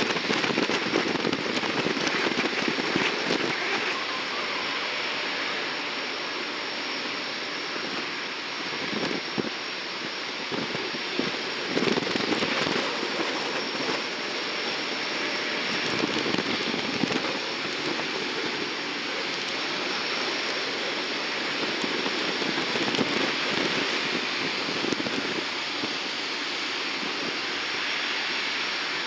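Jet aircraft engine noise: a steady rush with a fine crackle, a little louder in the first few seconds.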